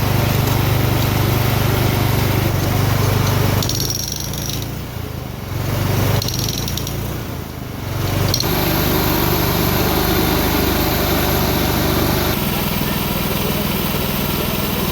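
Hydraulic breaker hammering at the ground, driven by its running engine power unit, a steady mechanical din with two short lulls a few seconds in.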